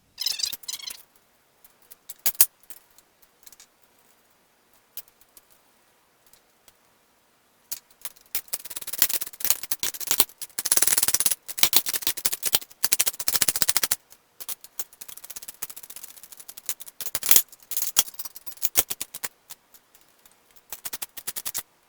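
Ratchet wrench clicking in quick runs as bolts are run in to fasten a steel frame rail, with scattered single metal clinks and knocks between the runs.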